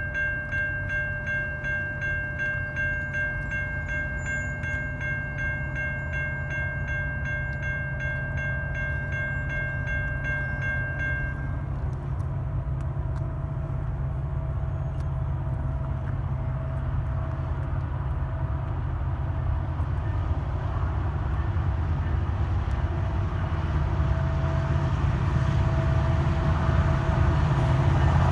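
Grade crossing bell ringing rapidly and stopping about twelve seconds in, over the low rumble of a passing diesel freight train, which grows louder toward the end.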